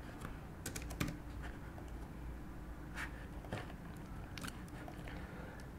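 A few scattered clicks from a computer keyboard and mouse, faint over a low steady room hum.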